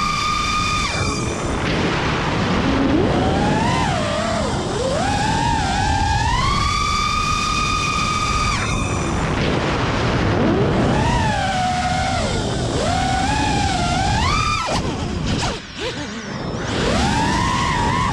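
Electric motors of an FPV quadcopter whining, their pitch rising and falling again and again with the throttle, over a rush of wind on the drone's onboard camera microphone. About three seconds before the end the motors drop off briefly, then spool back up.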